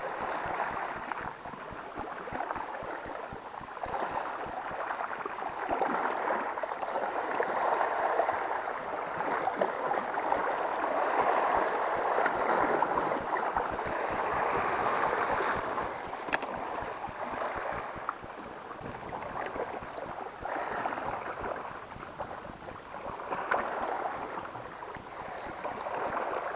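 Sea waves washing and splashing over shoreline rocks, a rushing water noise that swells and eases in surges a few seconds long.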